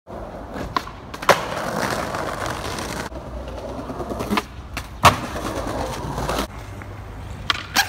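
Skateboard wheels rolling on rough pavement, broken by sharp clacks of the board. A loud clack comes a little over a second in, a smaller pop at about four and a half seconds, and the loudest slam, a landing, about five seconds in, followed by more rolling that fades off at about six and a half seconds. Two more quick clacks come near the end.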